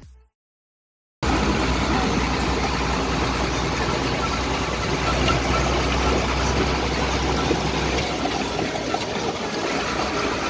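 Tractor engine running steadily, heard from the driver's seat, starting abruptly after a second of silence. The deep hum eases a little about eight seconds in.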